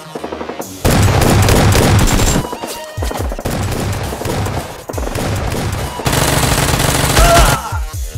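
Two long bursts of rapid automatic-gunfire sound effects, the first about a second in and the second about six seconds in, over background electronic music with a steady low beat.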